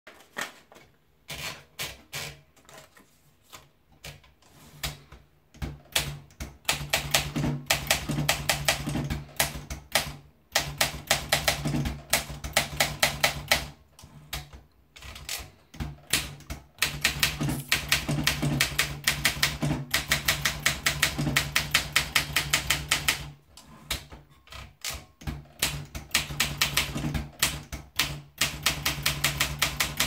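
Olympia Monica manual portable typewriter: a few scattered clicks as a sheet of paper is rolled onto the platen, then runs of rapid keystrokes, the type bars snapping against the platen, broken by short pauses between lines.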